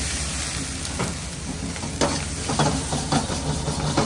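Ramen-shop kitchen cooking sounds: a steady hiss over a low hum, broken by several knocks and clinks of utensils, about one every half second in the second half.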